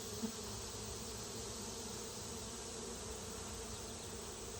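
Honey bees buzzing steadily around an open hive, the continuous hum of many bees.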